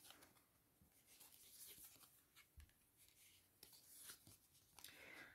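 Near silence: room tone with a few faint soft ticks and rustles.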